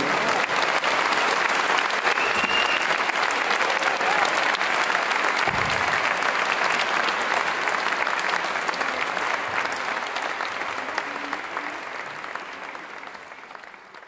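Audience applauding at the end of a song, a dense steady clapping that fades away near the end.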